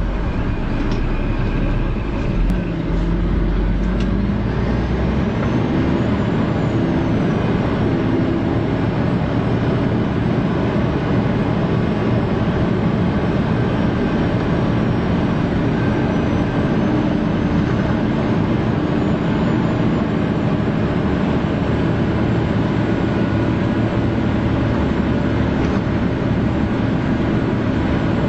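Steady engine and road noise of a vehicle driving slowly. A deep hum drops away about five seconds in.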